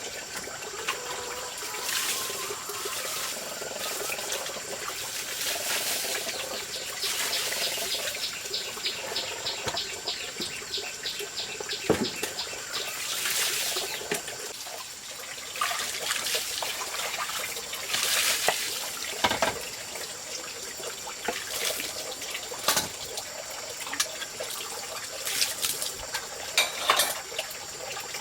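Water splashing and trickling, with scattered knocks and clatter and a brief run of rapid ticks a few seconds in.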